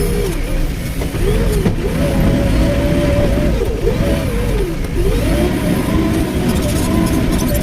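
Excavator's diesel engine running under working load, its pitch rising and falling over and over as the revs swing up and down.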